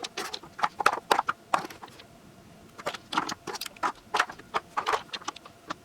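Glass nail polish bottles clicking and clinking against one another and the surface as they are handled and set down, in quick irregular taps with a short lull about two seconds in.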